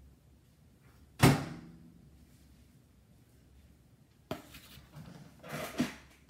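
Countertop toaster oven door shutting with one sharp metallic clack about a second in, ringing briefly. A softer click and some shuffling follow near the end.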